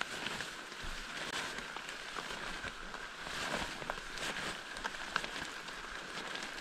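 Soaked undergrowth brushing and swishing against a hiker pushing through it, with footsteps and water pattering off the wet leaves as a steady hiss full of small irregular ticks.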